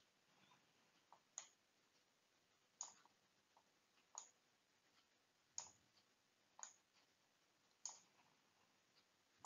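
Near silence broken by faint, irregular clicks, roughly one a second, made at the computer while red circles are drawn onto the slide.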